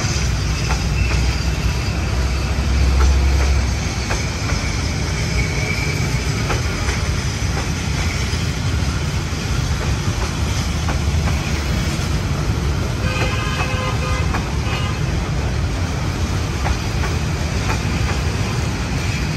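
Diesel-hauled passenger train running past, a steady loud rumble with clicks of the wheels over the rails. A brief higher tone sounds about 13 seconds in.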